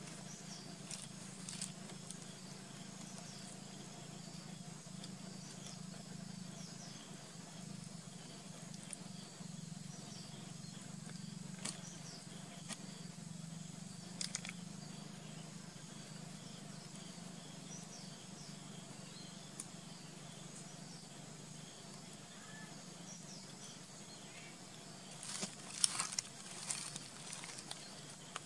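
Quiet outdoor ambience with a steady low hum, broken by small scattered clicks of pebbles as a baby monkey scrabbles over rocky ground, with a quick run of sharper stone clicks near the end.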